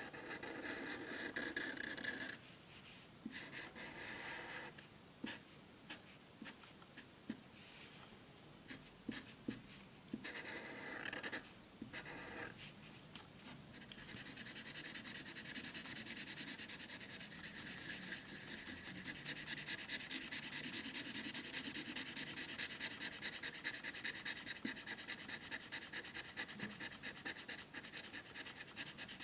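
Felt-tip marker scribbling on paper while colouring in solid black. There are short bursts of strokes in the first part, then a continuous run of quick back-and-forth strokes from about halfway.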